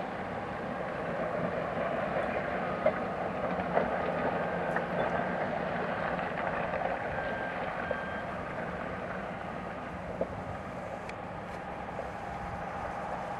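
Steady rumble of distant heavy machinery, with a few faint short tones near the middle and scattered small clicks; no blast.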